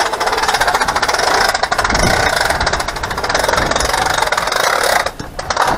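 A small electric motor with a fast gear rattle running for about five seconds, stopping abruptly, then running again briefly.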